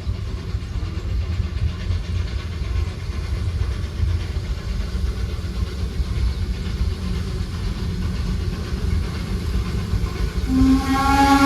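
Low steady rumble of a narrow-gauge steam train, then about ten seconds in the Baldwin steam locomotive's whistle starts blowing, one steady chord-like blast that becomes the loudest sound.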